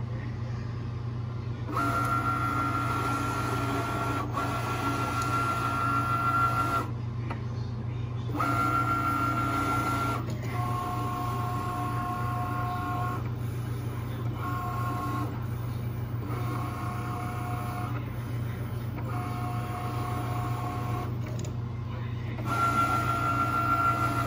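Cricut Maker cutting machine drawing with a Sharpie: its motors whine in a series of separate moves a few seconds each, at two different pitches, with short pauses between, over a steady low hum.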